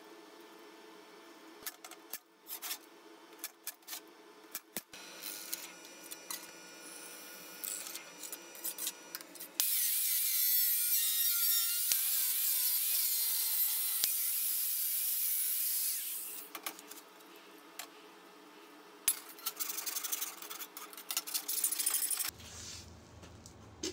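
Bosch angle grinder with a cut-off disc cutting into thin sheet steel: a loud, steady high-pitched cut lasting about six seconds, starting about ten seconds in. Before and after it, clicks and clatter of metal pieces being handled on a steel workbench.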